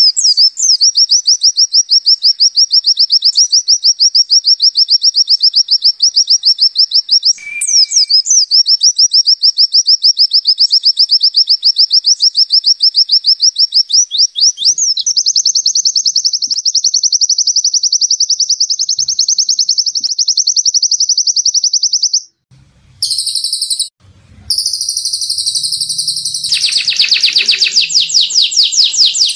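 White-eye (pleci) singing its 'zipper' song: a long, very fast, even trill repeated in long runs with short breaks. About two-thirds of the way through the song stops briefly twice, and near the end a wider, denser trill comes in.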